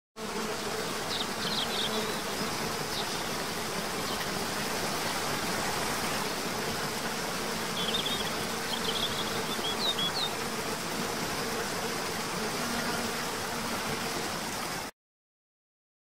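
Nature ambience: a steady rush of water with a faint steady insect hum, and short high bird chirps in two brief bouts. It cuts off suddenly near the end.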